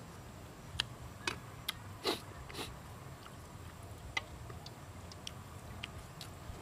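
Close-up eating sounds: a person biting and chewing cooked egg, with irregular short wet smacks and clicks, a few sharper ones in the first three seconds.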